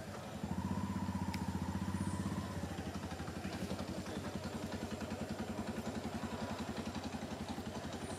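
A small engine running nearby with a rapid, even beat, a little louder for the first couple of seconds and then steady.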